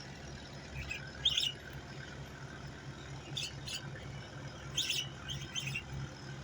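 Small birds chirping in a few short clusters of high calls, over the steady low pulsing drone of a tugboat's engine towing a heavy barge.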